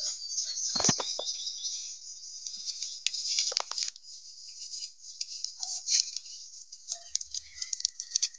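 Dry, papery garlic skins crackling and rustling as cloves are peeled by hand, with small sharp snaps as the skins split.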